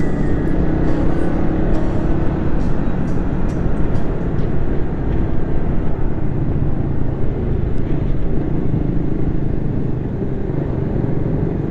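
Steady rumble of wind and engine from a Suzuki Raider 150 Fi motorcycle being ridden at speed, with a few faint ticks in the first few seconds.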